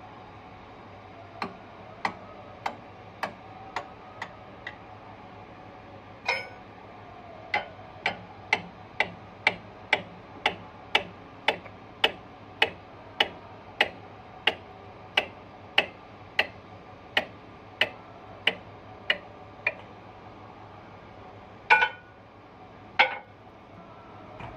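Hand tool being worked on a bulldozer's carrier roller: a run of short, sharp metallic clicks, about two a second, with a few scattered ones first, then two louder metal knocks near the end.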